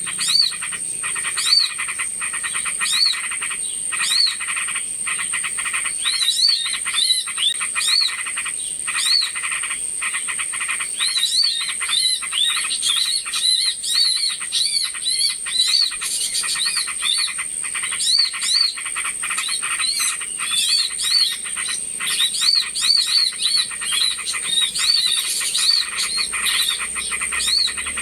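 Bird-lure recording of many small birds chirping and chattering together: short arched chirps repeating over dense rapid ticking calls, with a steady high-pitched tone underneath.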